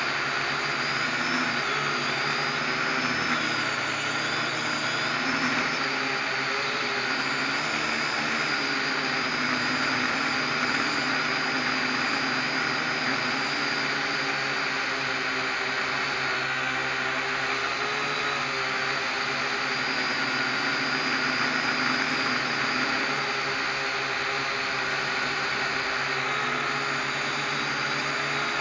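Small quadcopter drone's electric motors and propellers whirring steadily, their high whine wavering slightly in pitch.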